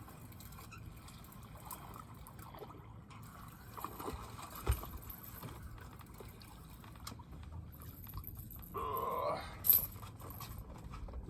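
Water lapping and gurgling against a boat hull, with scattered handling clicks and knocks. A brief rising whir near the end is followed by a sharp knock.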